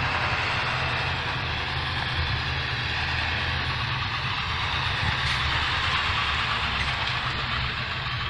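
The 7.3-litre T444E turbo diesel V8 of a 1997 International 3800 school bus running steadily as the bus drives slowly past, pulling a cabin cruiser on its trailer.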